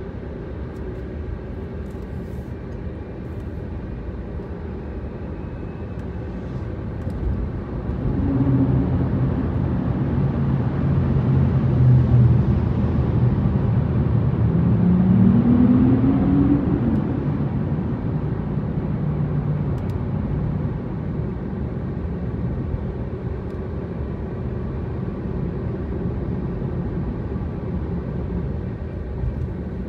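Car driving along a road: steady engine and tyre noise, growing louder in the middle as an engine note rises in pitch, then settling back to a steady run.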